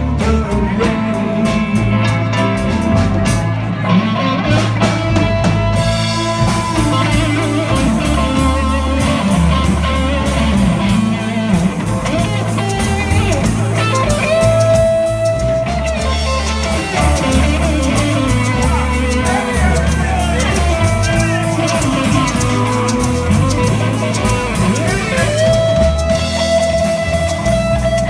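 Live band playing an instrumental passage: an electric guitar lead with long held notes that slide up into pitch, over bass and drums.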